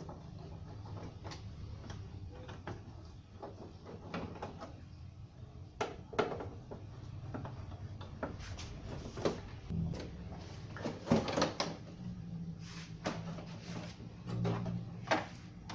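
Irregular clicks, knocks and rattles of parts and tools being handled during a TV repair, some clustered in quick runs, over a low steady hum.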